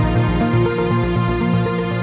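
Background music: sustained tones over a steadily pulsing bass.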